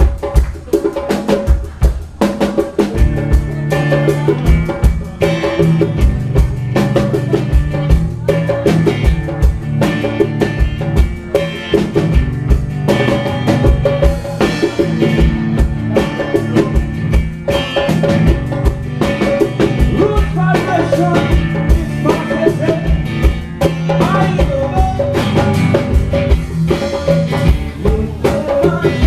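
Live konpa band playing at a sound check: a drum kit keeps a steady beat, and bass and other instruments join about three seconds in.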